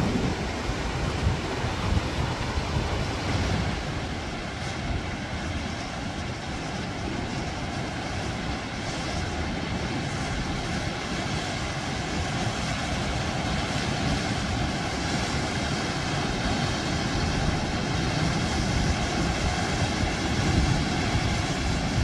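Surf washing around coastal rocks, with wind rumbling on the microphone. A faint steady engine drone grows in the second half.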